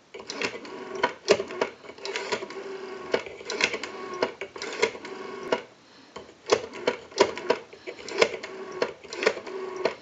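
Western Electric 500 telephone's rotary dial being wound and let spin back, digit after digit, each return sending a rapid run of clicks over a low whir as it pulses out a call, with a short pause about six seconds in.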